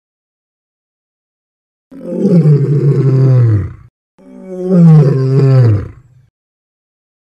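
Male lion roaring: two long calls of about two seconds each, starting about two seconds in, each sliding down in pitch.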